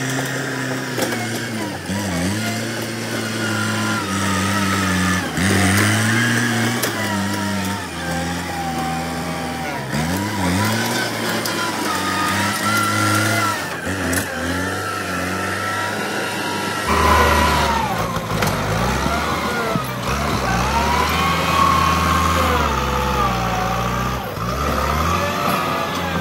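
Kubota M8540 tractor's diesel engine running under load as its front blade pushes soil, mixed with background music that has a singing voice.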